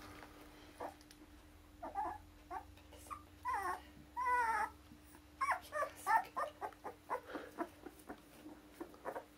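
Akita puppies whining and yipping while play-fighting. There are a few short squeaks, then two longer whines about three and a half and four and a half seconds in, then a quick run of short yips through the second half.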